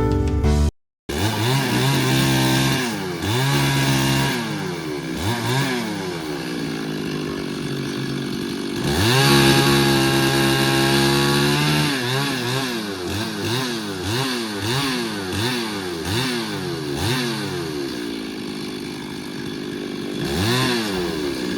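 Two-stroke chainsaw revving up and down over and over, held at high revs for about three seconds in the middle.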